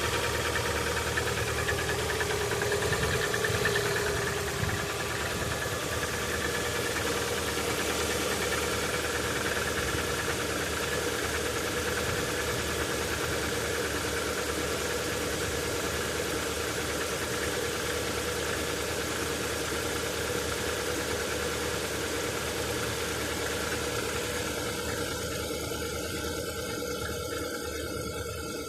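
Lada Vesta car engine idling after a cold start in sub-zero temperature, knocking as it runs cold. The level dips slightly about four seconds in and then holds steady.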